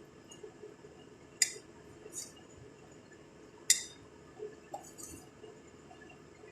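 A serving spoon clinking against a dish as rice is scooped out: two sharp clinks about two seconds apart, with a few lighter taps between and after.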